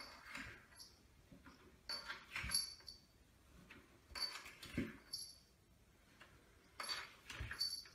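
A cat sliding down wooden stairs on its back, a step at a time: four bouts of fur rustling and rubbing on the wood about two seconds apart, each with short high squeaks and a soft thump as the cat drops onto the next step.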